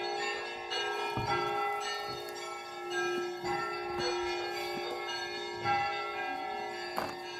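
Russian Orthodox church bells being rung for the evening peal. Several bells are struck about twice a second, their tones overlapping over a steady ringing hum.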